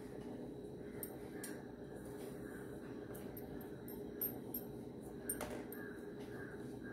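Charred skin being peeled by hand off a fire-roasted brinjal over a steel bowl: faint, scattered soft crackles and ticks, a few sharper ones about four and five seconds in, over a steady low hum.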